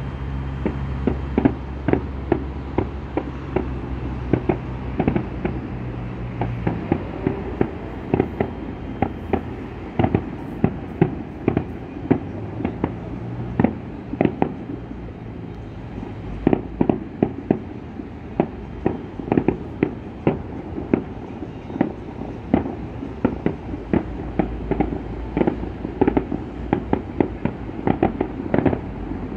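Fireworks display: many bangs in quick succession, often several a second, in dense clusters. A low steady hum runs under the first few seconds and returns near the end.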